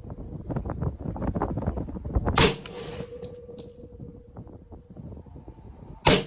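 AR-10 rifle in .308 fired twice, single shots about three and a half seconds apart, the second near the end. Scattered small knocks and clicks come before the first shot.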